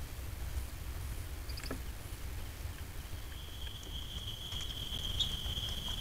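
A steady low rumble with a few faint clicks, then about three seconds in an insect starts a steady, high-pitched trill that holds without a break.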